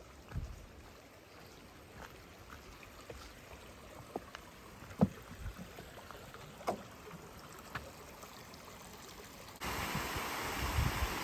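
Footsteps on a rocky hiking trail, with scattered sharp taps and clicks. Near the end a sudden cut to the steady rush of a flowing creek.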